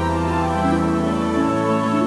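Background music of sustained chords that change every second or so.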